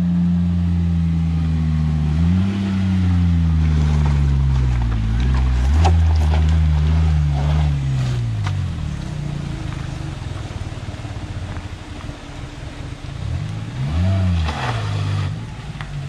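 Maruti Suzuki Omni van's small three-cylinder petrol engine pulling up a rocky dirt track, its pitch rising and falling with the throttle. A few sharp clicks sound around the middle. The engine grows fainter as the van drives away, with a short rev near the end.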